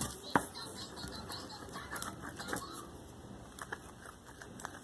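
Scattered light clicks and taps from handling small objects, with one sharp click about half a second in.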